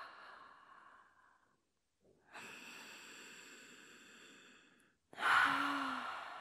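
A woman's deep, audible yoga breathing. An exhale tails off, then comes a long, steady inhale of about two and a half seconds. About five seconds in, a sudden forceful exhale begins with a short voiced sigh.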